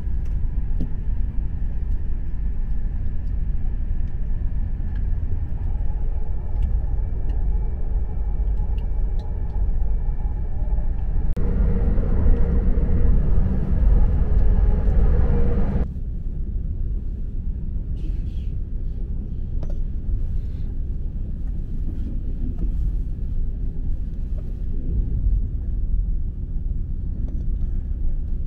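Night-train sleeping car running on the rails, heard inside the compartment: a steady low rumble of wheels and running gear. It grows louder and fuller for a few seconds near the middle, then drops back abruptly, with scattered faint clicks in the second half.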